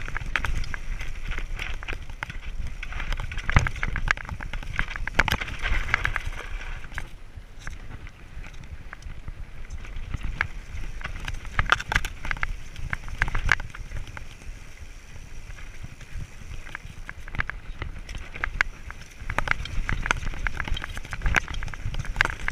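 Scott mountain bike descending rocky, loose singletrack: tyres crunching and skittering over stones and the bike rattling over the bumps in uneven louder stretches, with wind rumbling on the microphone.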